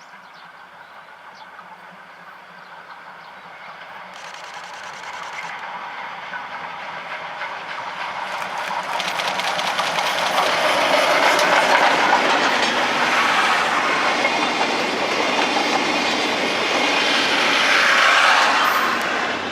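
Japanese D51-class steam locomotive D51 498 and its train passing close by, with wheels clattering over the rail joints. The sound grows steadily louder over about ten seconds, stays loud, then falls away right at the end.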